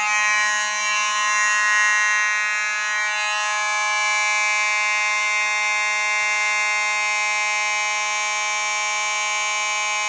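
Fire alarm horn sounding a loud, steady, unbroken tone: the system is in alarm after a manual pull station was pulled.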